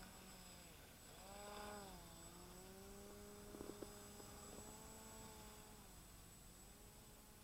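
Faint, distant engine drone at a steady pitch. Its pitch dips briefly about two seconds in, and it fades away near the end. A few soft clicks come about halfway through.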